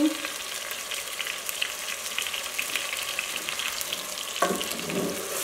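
Chopped tomatoes, onions and tomato paste sizzling and crackling steadily in hot oil in a pot. A wooden spoon stirs the pan about four seconds in.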